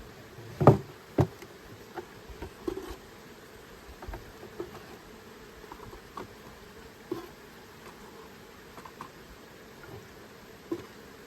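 Honey bees buzzing steadily around an open hive, with scattered sharp knocks and clicks as the wooden hive frames are handled, the two loudest about a second in.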